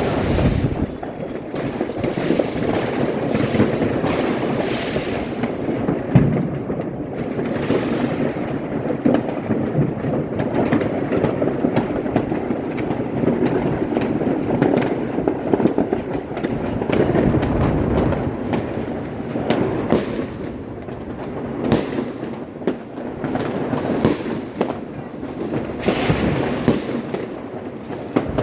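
Fireworks and firecrackers going off without pause: a dense crackle of many small bangs, with louder single bangs now and then.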